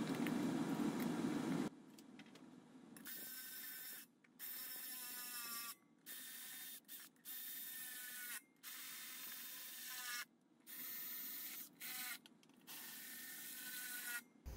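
Cordless drill-driver running in short bursts, its motor pitch dropping as each screw draws up tight; a steady low hum precedes it for the first two seconds.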